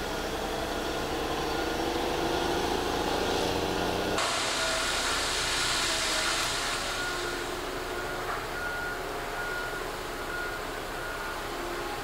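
Sennebogen 875 E material handler working scrap: its engine and hydraulics run as the grapple closes in the pile. About four seconds in, a loud burst of noise from scrap metal dropping into a haul truck's dump bed lasts a few seconds. Through it all a reversing beeper sounds about twice a second.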